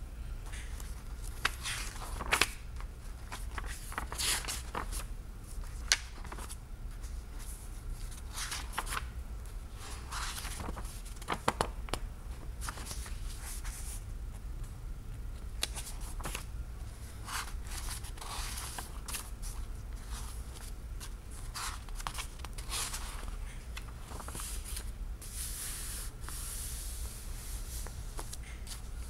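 Pages of a thick hardbound book being turned one after another, paper rustling and flapping at irregular intervals, over a steady low hum.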